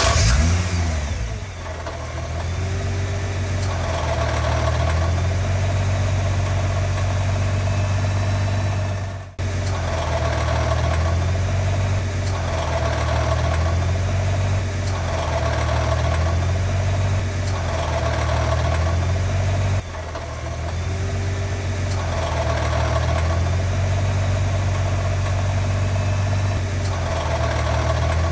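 Nissan GT-R R35's twin-turbo V6 flaring just after starting, then idling with a rattle from the transmission bell housing, the sound pulsing every couple of seconds. The rattle is typical of a failed bell housing.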